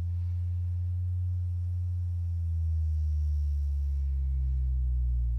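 A miniature Bose Videowave II woofer, out of its enclosure in free air, playing a steady low bass sine tone from a signal generator at a fair bit of cone excursion, with faint overtones above it.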